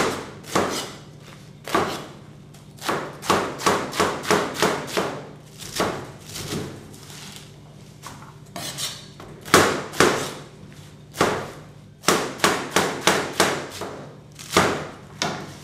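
Chef's knife chopping romaine lettuce on a plastic cutting board: runs of sharp knife strikes, about three a second, with short pauses between runs and a longer break about halfway through.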